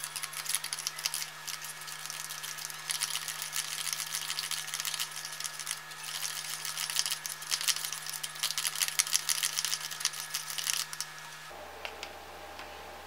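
A small plastic stick stirring and scraping in a plastic candy-kit tray, mixing powder and water into a thick ketchup-like candy paste: quick, busy clicking and scraping that stops suddenly near the end.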